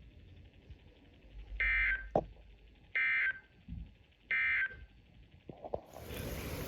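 Emergency Alert System end-of-message data tones from NOAA Weather Radio after a broadcast warning. There are three short, identical buzzy bursts of digital data, about 1.3 seconds apart, which mark the end of the alert. About six seconds in, a steady hiss takes over.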